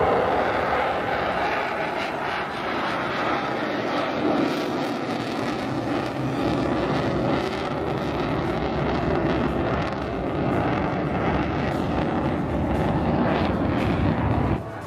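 Fighter jet engine noise as the jet flies past: a loud, steady rush that cuts off suddenly near the end.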